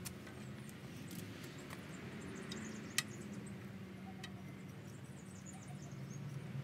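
Quiet handling sounds as a black trim strip is pressed along the edge of a live-steam model locomotive's side tank, with one sharp click about three seconds in.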